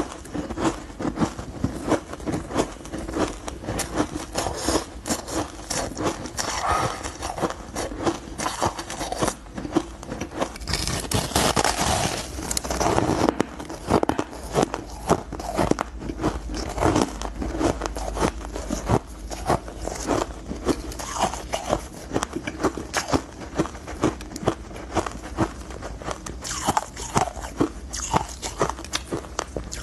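Powdery frozen ice crunching and crackling close to the microphone as it is crumbled by hand and bitten and chewed. The crackles are dense and quick, and swell into busier crunching bursts a little before halfway and near the end.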